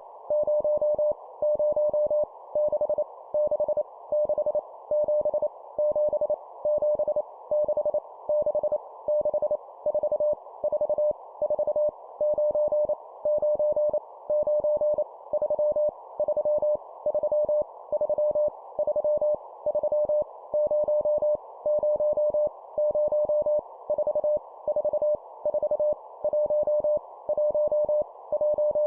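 Morse code (CW) practice tone near 600 Hz, keyed at 25 words per minute, sending groups of random numbers, each repeated three times, in rapid dots and dashes with short pauses between groups. Under the tone runs a steady band of hiss.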